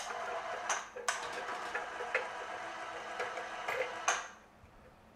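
Small electric cable winch running steadily as it hoists a rotary table, with sharp metallic clicks and clinks from the hook and load. It stops suddenly about four seconds in.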